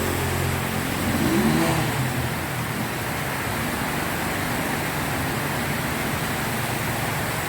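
Heavy rain falling steadily, with a motor vehicle's engine humming low underneath, strongest in the first couple of seconds.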